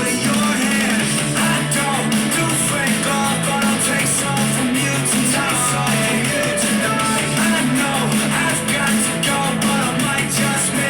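Pop-punk rock song with electric guitar and singing, playing steadily.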